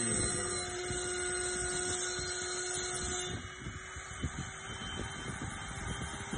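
CNC 6040 router's spindle running with a steady whine as its engraving bit cuts into a wooden cylinder turning on the rotary axis, with a rough cutting noise under the whine. A little past halfway the whine shifts and the sound gets slightly quieter.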